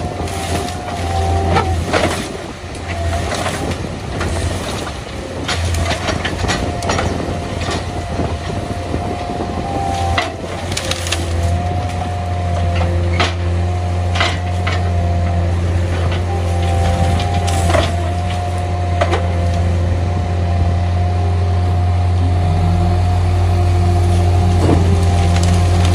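Diesel engines of a skid-steer loader and a garbage truck running with a steady drone and a high whine, while branches and palm fronds crack and snap as they are tipped and crushed into the truck's rear hopper. The engine drone grows louder near the end.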